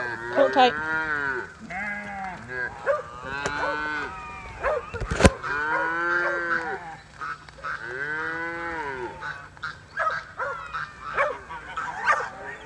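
Cattle mooing repeatedly as calves are herded along: about five or six calls, each about a second long, rising and then falling in pitch, some overlapping. A single sharp knock about five seconds in.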